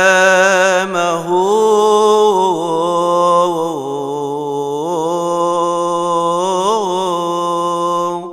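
Male deacon chanting a Coptic Orthodox hymn solo, unaccompanied: one long melismatic vowel held with slow rises, falls and wavers in pitch, fading off just before the end.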